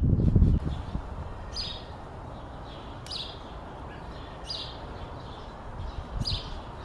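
A bird calling outdoors: a short high chirp, four times, about a second and a half apart. A brief low knocking rumble in the first half second.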